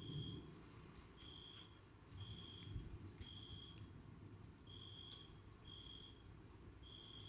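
Faint, high, pure chirps from an insect, each lasting under half a second and coming at uneven intervals of about one a second. Under them is a faint low rumble that swells briefly near the middle.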